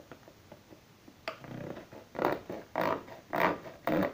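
Metal tin being sawn open by hand: a click, then a run of rasping strokes about every half second as the lid is cut.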